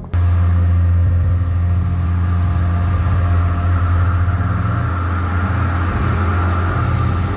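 Tormach CNC mill running: a steady, loud low hum with a hiss above it.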